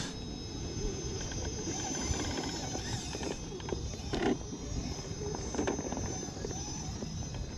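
Radio-controlled scale rock crawler's electric motor and geared drivetrain whining as the truck climbs a steep rock slab, with its tyres scrabbling and knocking on the stone now and then, over a steady low rumble.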